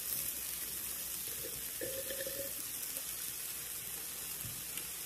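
Steady sizzling hiss of meat and chicken skewers cooking on an electric hotpot-and-grill plate.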